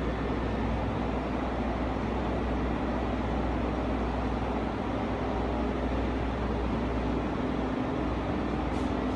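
Steady machine-like hum and hiss with a low drone underneath, holding even throughout, and a couple of faint clicks near the end.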